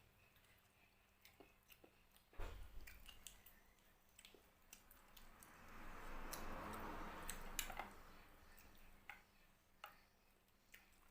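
Faint close-up eating sounds: a person chewing food, with scattered small clicks, a thump about two seconds in, and a soft, longer noisy swell in the middle.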